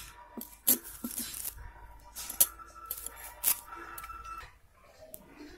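Plastic bag crinkling and rustling as it is handled, in a few short irregular crackles.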